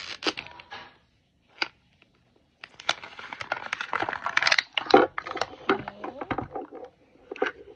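Clear plastic wrap being peeled and crumpled off a plastic toy capsule ball, crinkling and crackling with many sharp clicks. A short burst comes first, then dense crackling from about three seconds in, with the loudest click about five seconds in, and hard plastic clicks as the ball is opened.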